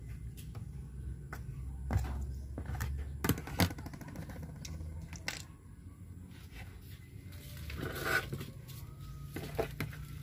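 A low steady hum with scattered sharp clicks and knocks, the loudest about two seconds in and twice more around three and a half seconds, and a short rustling noise about eight seconds in.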